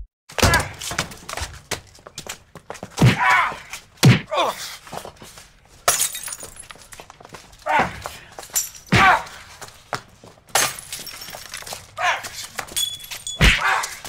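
Gloved punches landing on a hanging heavy bag: a run of irregular thuds, the hardest about three, four, nine and thirteen and a half seconds in, echoing in a large room.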